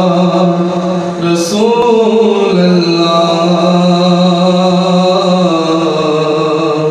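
A man's solo devotional chant sung into a microphone, holding long notes that slowly waver in pitch, with a brief hiss about one and a half seconds in.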